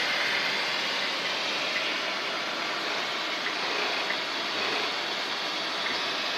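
Filter-bag welding machine running with a steady hiss, with no rhythm or distinct strokes.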